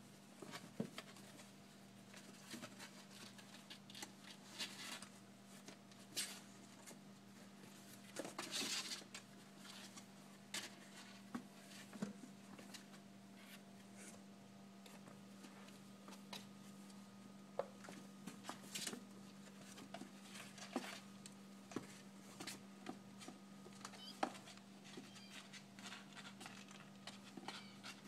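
Kittens scrabbling and pattering about in a box: faint scattered scratches and taps, with a longer scratchy rustle about eight seconds in, over a low steady hum.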